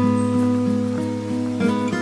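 Background music on acoustic guitar, with chords changing every half second or so.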